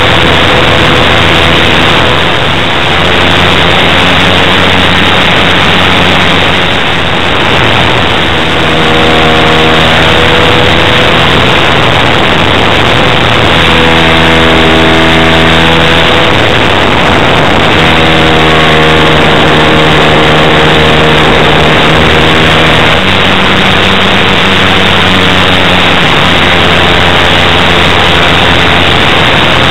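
OS FS-120 Surpass pumped four-stroke glow engine of a large RC model warplane, turning a 16x6 propeller at flight throttle, heard close up from a camera on the airframe. It runs loud and continuous under a heavy hiss, its note holding steady for stretches of a few seconds and then shifting.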